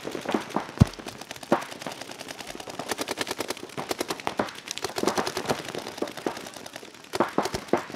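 Paintball markers firing fast strings of shots, a dense rattle of sharp pops throughout. One louder, deeper knock comes just under a second in.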